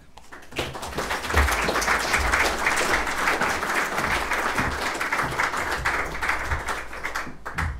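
Audience applauding. The applause starts about half a second in and dies away near the end.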